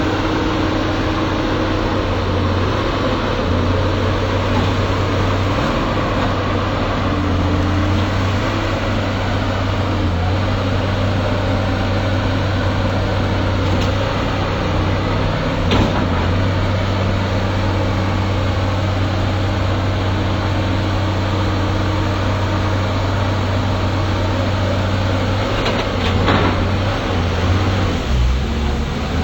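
Excavator's diesel engine running steadily, with a brief knock about halfway through and a few more knocks near the end.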